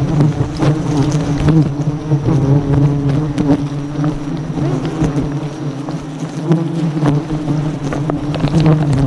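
A swarm of wild honey bees buzzing densely and steadily close around the microphone, with a few short clicks and knocks.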